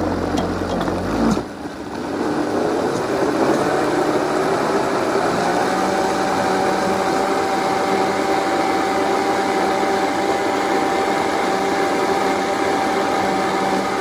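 Vitamix blender motor pureeing a jar of hot soup. About a second and a half in the sound shifts, and over the next few seconds the motor climbs in pitch as it is turned up to high speed, then runs at a steady high whine. It winds down right at the very end.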